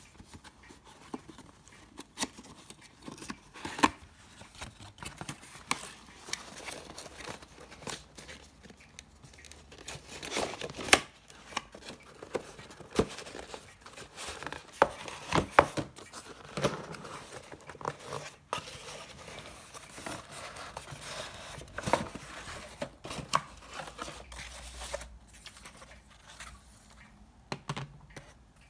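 Cardboard box being opened and unpacked by hand: flaps and inner cardboard insert scraping and rustling, with irregular sharp knocks and the crinkle of plastic wrapping.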